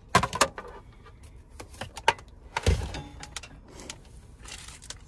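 Rummaging: household items being shifted and knocked about while searching for a plate, a quick clatter of clicks and knocks, with a heavier thump a little under three seconds in.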